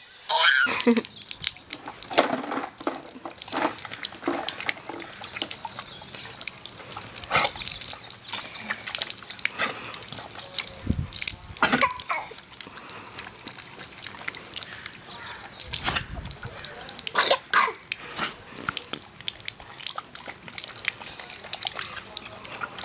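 Garden hose running, with water trickling and splattering irregularly onto wet paving.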